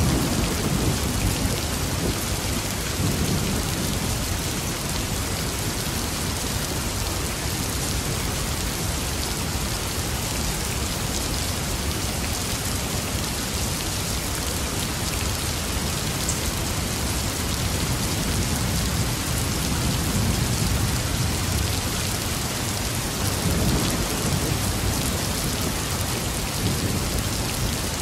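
Steady heavy rain with low rumbles of thunder swelling several times, strongest near the start and again about five-sixths of the way through.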